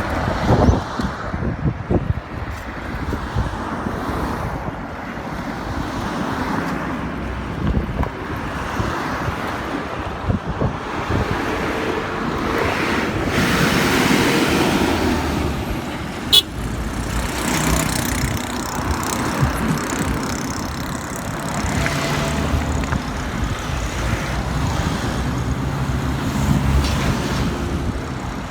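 Road traffic on a busy highway: cars and trucks driving past, with one passing close about halfway through. Wind buffets the microphone in the first few seconds, and there is a single sharp click just after the midpoint.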